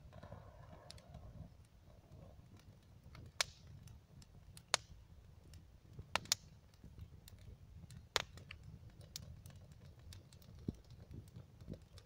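Bonfire of dry twigs and brushwood crackling, with scattered sharp pops, about five loud ones, over a low steady rumble.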